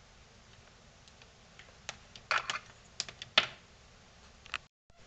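Scattered light clicks and knocks of a power cable and its DC barrel plug being handled and laid on a wooden workbench, several in quick succession in the second half, the loudest about three and a half seconds in.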